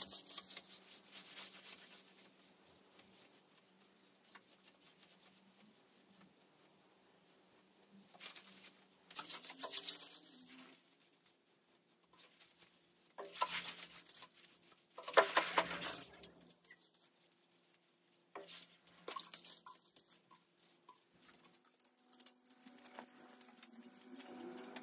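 Scrubbing of soapy bathroom surfaces, heard as several bouts of quick rasping strokes from about eight seconds in, with quiet gaps between. A faint steady low hum runs underneath.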